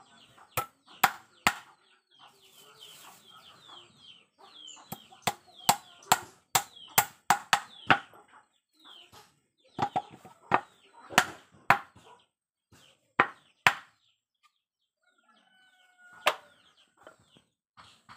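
Hammer blows driving nails into a small teak wood frame, sharp knocks in short runs with pauses and a last lone blow near the end. Chickens cluck between the blows.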